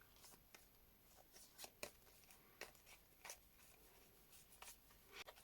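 Near silence broken by faint, scattered clicks and light rubbing of paper photocards being handled and flipped through, about a dozen small ticks.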